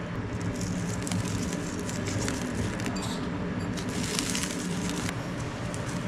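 Light crackle of salt-and-chili seasoning pinched from a height and falling onto peeled ambarella in a plastic tub, over a steady low hum.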